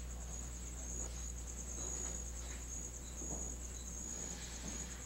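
Crickets chirping in a steady, pulsing high trill, over a faint low hum.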